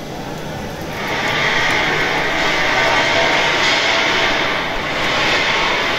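Wide-width flexographic printing machine running steadily. A louder, even hiss comes in about a second in and holds, easing near the end.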